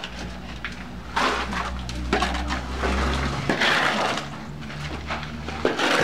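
A hoe scraping and chopping through wet cement mix on a concrete floor, in repeated strokes every second or two, over a low steady hum.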